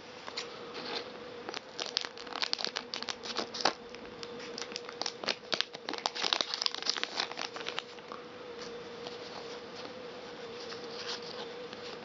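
Foil booster-pack wrapper crinkling and tearing as a Pokémon card pack is opened by hand, with a dense run of crackles that thins out about eight seconds in to quieter handling.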